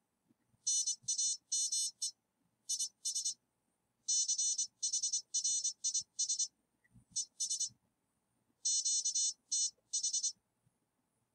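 Morse code (CW) sidetone from a Begali CW Machine keyer at 24 words per minute: a high-pitched beep keyed into short dots and dashes, in groups separated by pauses, spelling out "NAME IS CHRIS ES QTH".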